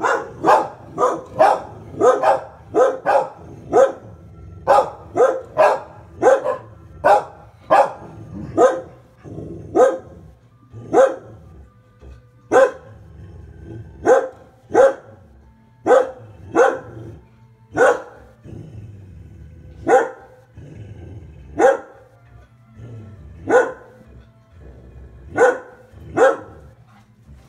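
A dog barking repeatedly, in quick runs of about two or three barks a second at first, slowing to single barks every second or two toward the end.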